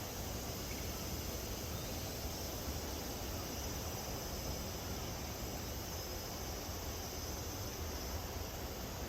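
Cicadas shrilling in a steady, unbroken drone, over a low background rumble.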